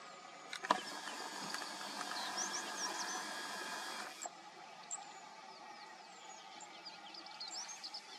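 Small birds chirping in the bush, many short, quick calls. Partway in, a steady hiss starts with a click and cuts off sharply about four seconds in.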